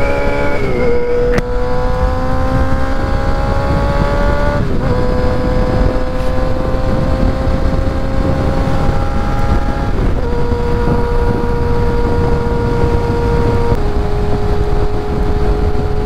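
Kawasaki ZX-6R inline-four sport-bike engine pulling at highway speed, heard from the rider's seat. Its note climbs slowly, with short dips in pitch about one, five and ten seconds in, and settles lower near the end. A heavy rush of wind runs underneath.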